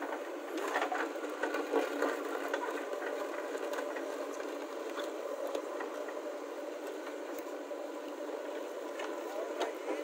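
JCB backhoe loader's diesel engine running steadily as the backhoe works, with scattered knocks and scrapes from the bucket digging into soil and stones, most of them in the first few seconds.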